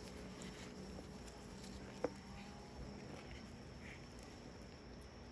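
Faint handling sounds from gloved hands working a carcass on a metal tray, with one sharp click about two seconds in.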